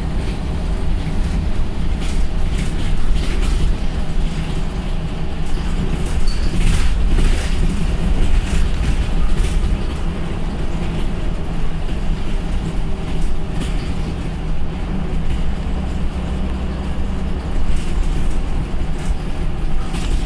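Scania single-deck bus under way, heard from inside the passenger saloon: a steady low engine drone with road noise and occasional knocks.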